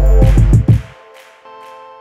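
Electronic background music: heavy bass beats for about the first second, then the beat drops out, leaving a quiet held chord.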